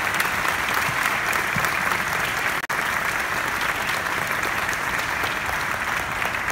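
Large crowd applauding steadily, with the sound cutting out for an instant about two and a half seconds in.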